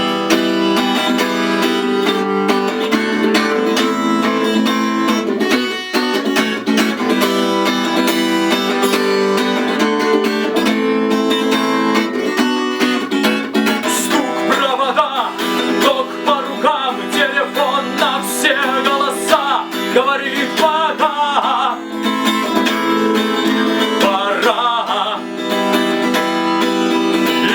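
Acoustic guitar strummed in a steady rhythm as a song intro. About halfway through, a higher melody line with wavering, bending pitch joins the strumming.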